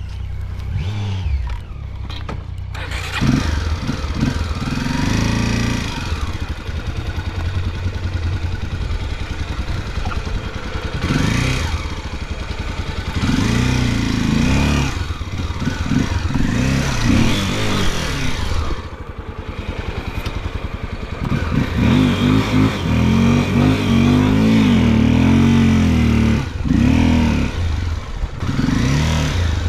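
Off-road motorcycle engine revving hard and unevenly as it is ridden over rough, soft trail, its pitch climbing and dropping again and again, with a short easing off about two thirds of the way through.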